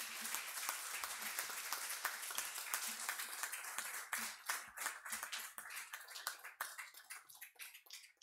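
Audience applauding. The applause thins out into scattered claps over the last few seconds and stops at the end.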